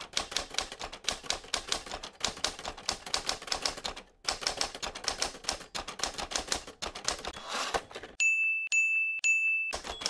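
Typewriter sound effect: fast clacking of typebars, pausing briefly about four seconds in, then three short high bell dings near the end.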